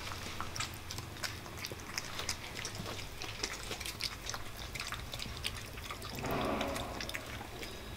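Cats eating wet cat food from bowls: faint, quick wet clicks and smacks of chewing and licking, with a brief muffled louder sound about six seconds in.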